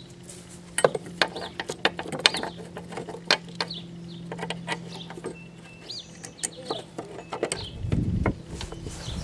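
Hand tools and metal parts clicking and clinking irregularly as a lawn mower engine is worked on, with a short low thud near the end. Birds chirp in the background over a steady low hum.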